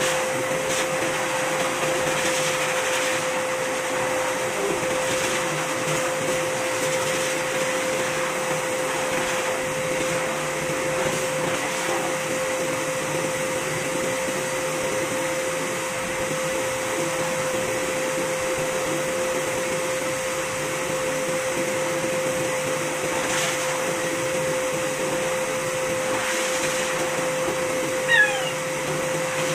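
Pet grooming blower (high-velocity dryer) running steadily through its hose, a constant motor whine with rushing air, as it blows out a cat's coat. A brief falling squeak near the end.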